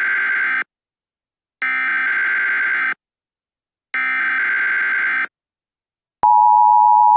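Emergency Alert System tones: the harsh, buzzy data bursts of the SAME header, three of them about a second and a half long with a one-second gap between them, then about six seconds in the steady two-tone attention signal starts.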